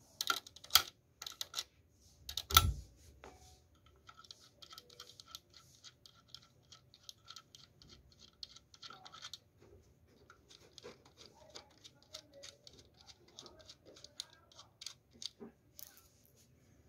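Metal clicks and a dull knock, then long runs of fast, light ticking, as a busbar nut on a lithium iron phosphate battery's cell terminal is unscrewed with a hand tool.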